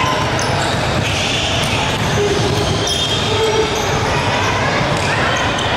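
Basketball bouncing on a gym court during a game, under a steady din of voices in the hall.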